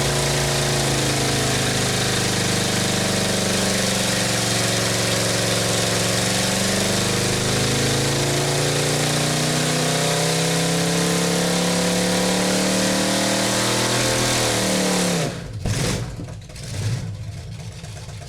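Car engine running with its pitch rising and falling slightly, together with a strong hiss; it cuts off about fifteen seconds in, followed by a few quieter knocks.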